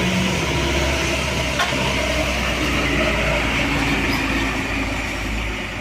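Heavy truck's diesel engine labouring up a steep grade under load: a steady low drone that eases off slightly near the end.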